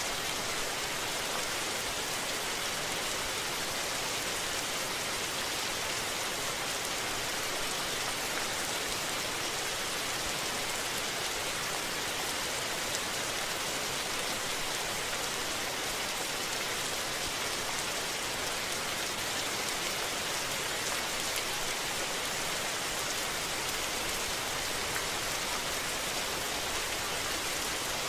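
Rain falling steadily, an even, unbroken hiss with no thunder.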